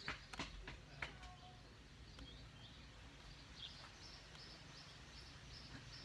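Faint bird chirping: short high notes repeating about three times a second, starting about three seconds in, over low outdoor background noise. A few light clicks sound in the first second.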